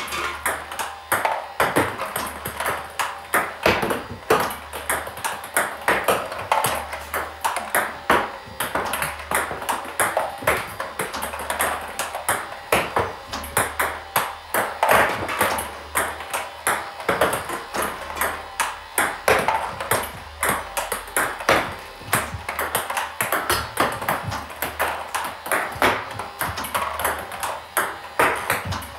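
Table tennis practice against underspin: a celluloid-type plastic ball bouncing on the table and struck with backhand loops, making a steady run of sharp clicks, a few a second.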